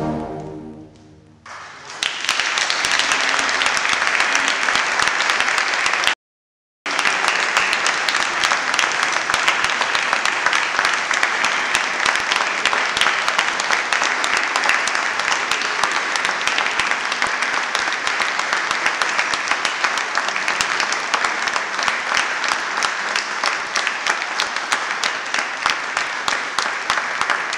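A brass and saxophone band's final chord fades out, then an audience applauds steadily from about two seconds in, broken once by a split second of dead silence.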